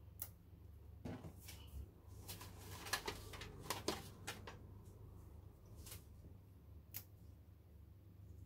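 Scattered light clicks and knocks, most of them bunched between about one and four and a half seconds in, over a steady low hum.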